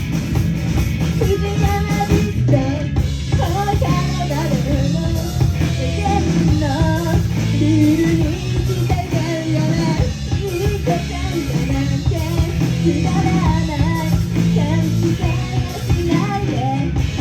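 Live rock band performance: electric guitar, bass guitar and drum kit playing steadily with a sung vocal melody over them.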